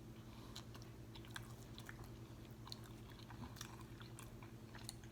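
Quiet chewing of a mouthful of food, heard as faint, irregular wet mouth clicks and smacks over a steady low hum.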